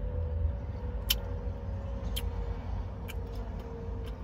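Mouth sounds of someone eating crispy fried chicken: a handful of sharp crunchy clicks about a second apart, over a steady low rumble with a faint hum from the car.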